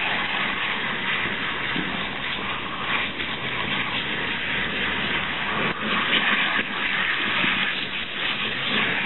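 Hand-held shower spray at a salon wash basin running steadily, with water splashing over wet hair and into the basin.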